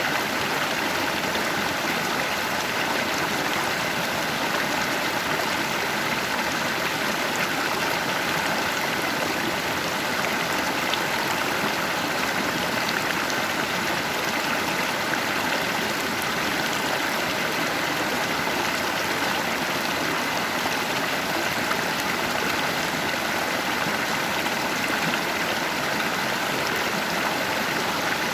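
A stream's current running over rocks: a steady, unbroken rush of water with a light trickling, gurgling texture.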